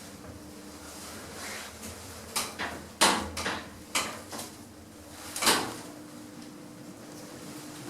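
Service lift's doors and car clunking: a run of knocks and bangs, the loudest about three and five and a half seconds in, over a steady hum.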